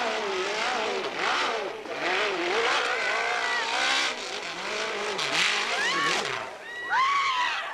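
Dirt bike engine revving hard on a steep hill climb, its pitch rising and falling over and over as the throttle is worked.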